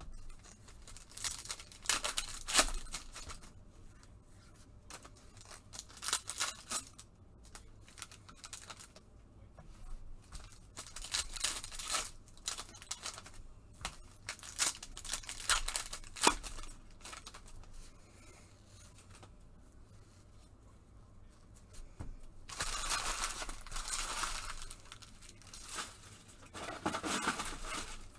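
Trading card pack wrappers being torn open and crinkled in several separate bursts of a second or two, the longest two near the end.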